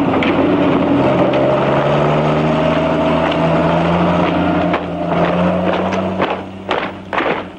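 Tank engine running loud and steady, its pitch rising slowly. About six seconds in it drops away and a string of short knocks follows.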